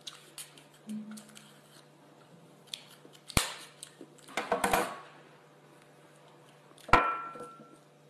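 Knife blade scraping and cutting a raw adductor muscle off a pen shell: short scrapes about three and a half seconds in and a quick run of them around four and a half seconds, then a sharp knock with a brief ring near the end.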